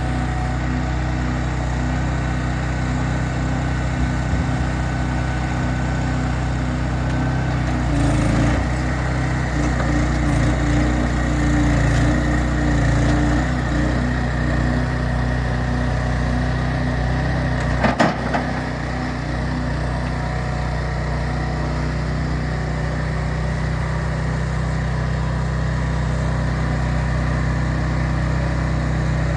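An engine running steadily, working harder for a few seconds about a third of the way in, with one sharp knock about 18 seconds in.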